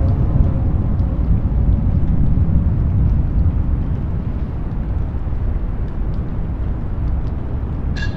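A deep, steady rumble, almost all of it very low, easing slightly toward the end, with a short sharp click near the end.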